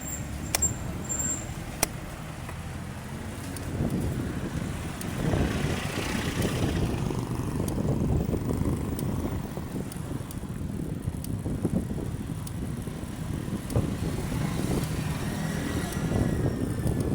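Steady low rumble of road and vehicle noise, growing louder about four seconds in, with a few sharp clicks near the start.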